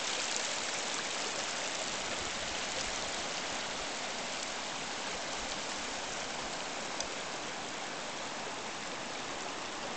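Mountain river runoff rushing steadily, a continuous hiss of fast-flowing water.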